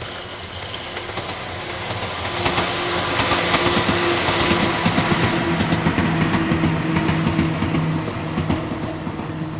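Ohmi Railway 800-series two-car electric train passing close by, its wheels clacking over rail joints with a steady hum. It grows louder over the first few seconds and eases off slightly near the end.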